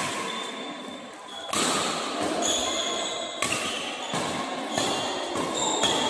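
Badminton rally: a racket striking the shuttlecock with a series of sharp hits, echoing in a large sports hall.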